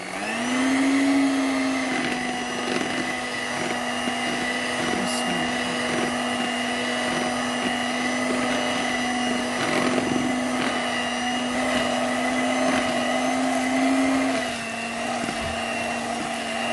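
Electric mixer motor churning thickened double cream into butter. It is switched to a faster speed at the start, so its whine rises in pitch, then runs steadily, and it settles a little lower and quieter about three-quarters of the way through.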